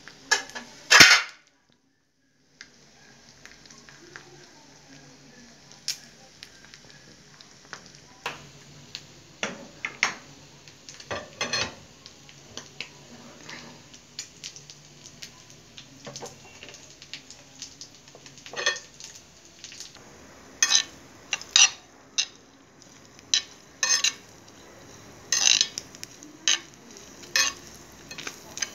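Ground pork sisig sizzling in oil on a hot cast-iron pan, a steady faint hiss under it. A metal spoon clinks and scrapes against the iron again and again, most often in the second half, with one loud clatter about a second in.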